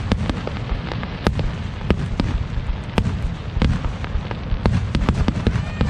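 Fireworks display going off: irregular sharp bangs and crackles over a continuous low rumble.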